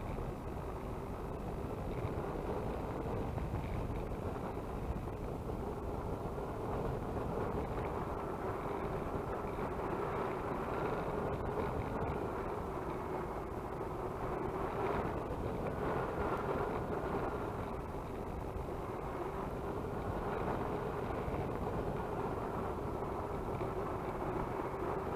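Twin electric motors and propellers of a Multiplex Twin Star BL model seaplane running steadily, a constant hum with a slight waver in pitch over a rush of wind.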